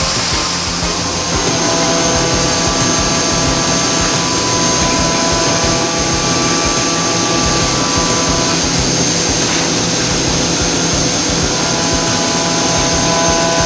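Leadwell V40 CNC vertical milling machine running under power, a steady mechanical noise with several constant tones; a high steady whine sets in about a second in.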